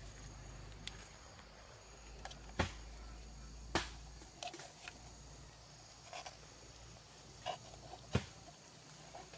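Dry bamboo and twigs snapping: a handful of sharp cracks, the loudest about two and a half and four seconds in and another near the end, over faint rustling.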